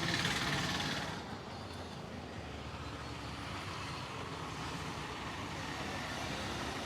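Steady street traffic noise, louder for about the first second and then settling to an even hum.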